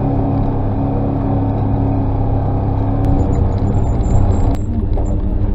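Side-by-side UTV's engine running steadily as it drives a rough dirt logging road, heard from on board. The engine note changes briefly a little past four and a half seconds in.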